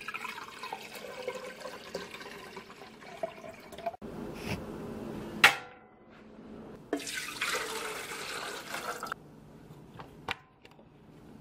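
Water running into a container in two spells, with a sharp metallic clank about five and a half seconds in as the stainless steel kettle is set on the burner. Near the end, two clicks from the electric stove's control knob being turned.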